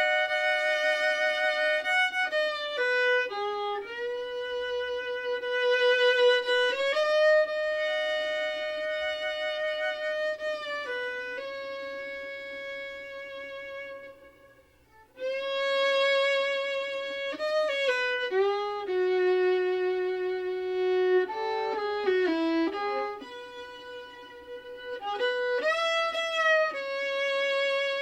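Background music: a slow violin melody of long held notes with slides between them, pausing briefly about halfway through.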